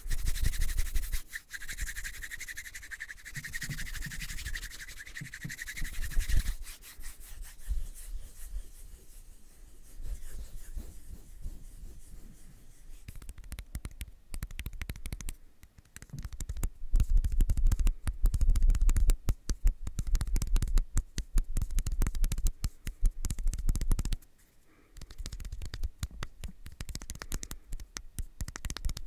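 Close-miked ASMR rubbing and brushing: fast, dense scratchy strokes. There is a hissy stretch in the first six seconds, and a bout of heavy low rumbling around the middle to later part.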